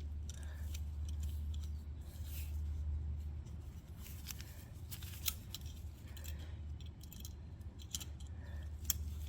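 Small metallic clicks and scrapes of a clamp tool being set on a CV boot band clamp, over a steady low hum.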